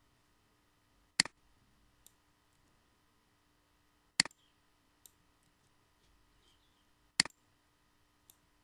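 Three sharp computer mouse clicks about three seconds apart, each a quick double of press and release, with a few faint ticks between them.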